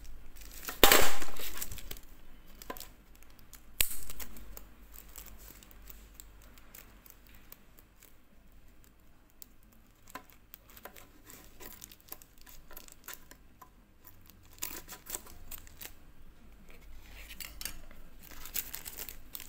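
Steel scissors snipping through a thin white wrapper, with the wrapper rustling and crinkling as it is handled. The loudest sounds are a burst about a second in and a sharper one near four seconds, followed by quieter snips and rustles.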